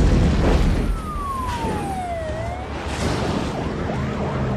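Police car siren wailing, its pitch sliding down and then turning back up, over the low rumble of car engines, which is loudest in the first second.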